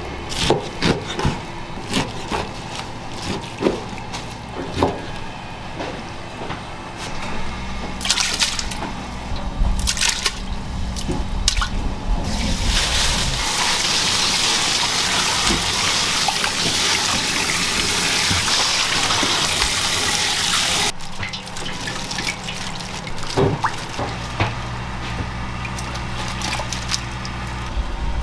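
Kitchen work: knocks and clatter of utensils, then water running steadily for about eight seconds, as if filling a pot or sink, before the knocking resumes.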